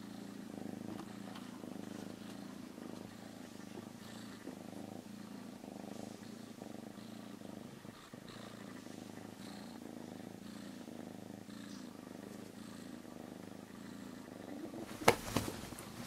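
Domestic cat purring steadily, a low pulsing rumble, with one sharp knock near the end.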